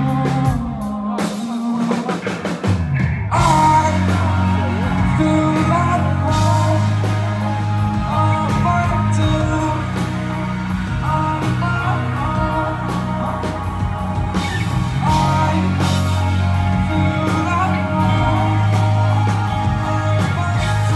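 Live rock-style concert music played loud over a venue PA, heard from the crowd: drums, guitar and a heavy steady bass line with singing. The bass drops out briefly about a second in and the full band comes back in about three seconds in.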